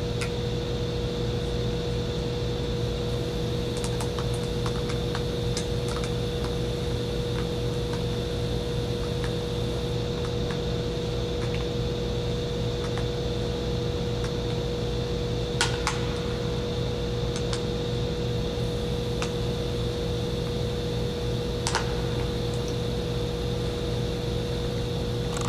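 Steady drone of a powder-coating booth's exhaust fan, with a held hum. A few light clicks of a spray gun and wrench being handled, two sharper ones about two-thirds and five-sixths of the way through.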